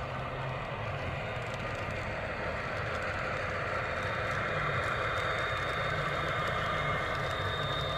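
Model Atlas Santa Fe U28CG diesel locomotives running past, their Soundtraxx Tsunami2 sound decoders playing diesel engine sound through the onboard speakers. The sound grows a little louder about halfway, and a thin high whine comes in.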